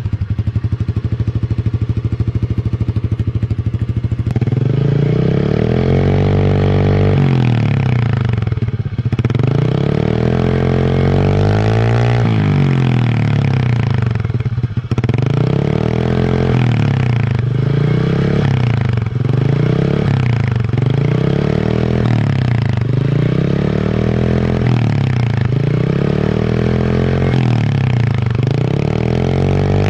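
Honda Beat scooter's single-cylinder four-stroke engine running through a cheap aftermarket WRC 'mber' bucket-style exhaust. It idles for about four seconds, then is revved over and over in about a dozen throttle blips, each rising and falling in pitch.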